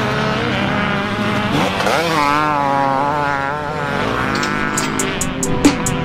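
Motocross bike engine revving: its pitch climbs sharply about a second and a half in, holds high and wavering, then eases off. Near the end a music beat with a steady ticking hi-hat comes in.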